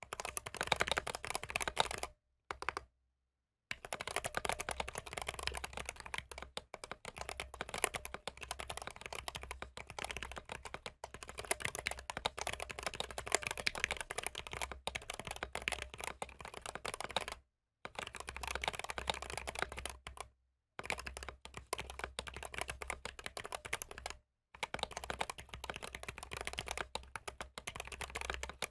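Fast, continuous typing on a Glorious GMMK 3 Pro mechanical keyboard with Drop Holy Panda X tactile switches, with clacking keystrokes and a few brief pauses. The uploader finds the board gives the switches a ping-y sound.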